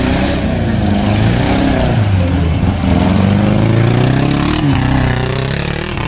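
Off-road 4x4's engine revving hard under load, its pitch rising and falling over and over as the driver works the throttle through deep mud and ruts.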